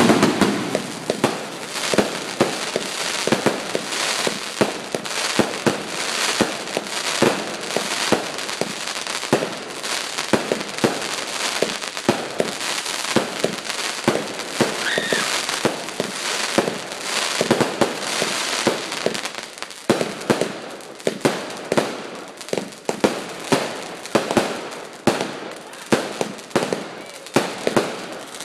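Fireworks going off in rapid succession: a dense, continuous run of sharp bangs and crackling, which thins in the last third into more separate sharp reports, about two a second.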